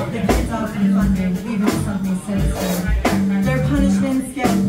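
A live small band playing: upright bass notes, drum kit hits and electric guitar, with a melody line moving over them.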